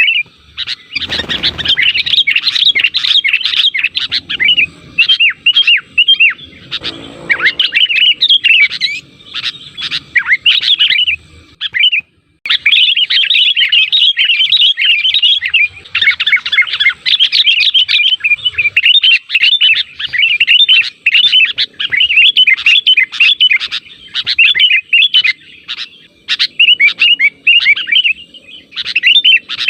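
Sooty-headed bulbuls (kutilang) calling and chattering in rapid, overlapping chirps, as in a lure-call recording meant to draw other bulbuls into answering. A brief pause falls near the middle.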